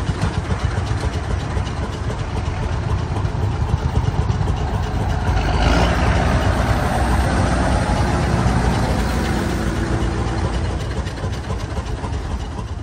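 Diesel tractor engines running steadily at close range as a Fendt Turbomatik tractor tows a box trailer past.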